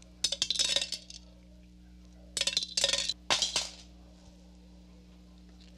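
Dry beans swept by hand across a tabletop into a metal bowl, clattering in three short bursts of rapid clicks, the first near the start and two more past the middle. A faint steady hum runs underneath.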